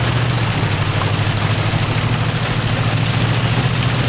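Inside the cab of a 2020 Toyota Tundra TRD Pro on a wet road: the 5.7-litre V8 and the tyres make a steady low drone, under loud rain on the roof and windshield.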